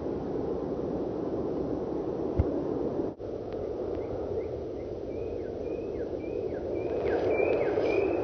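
Steady low rushing of wind on the phone microphone, with a dull thud about two and a half seconds in. From about four seconds in, a bird chirps over and over in short sliding notes.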